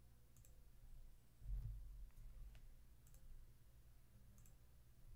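Near silence: room tone with a faint steady low hum, a soft low thump about a second and a half in, and a few faint clicks.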